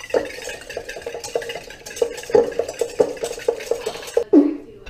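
Wire whisk beating raw eggs in a stainless steel bowl: quick, even clinking strokes against the metal, about four a second, each leaving the bowl ringing briefly, with a louder clank near the end.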